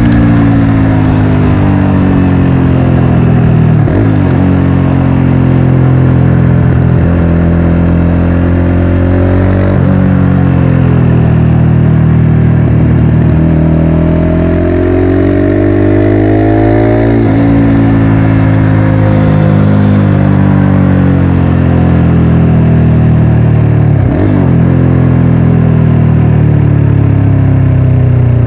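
Motorcycle engine under way, its pitch climbing and falling with the throttle. There is a sharp break in pitch roughly every six seconds as gears change.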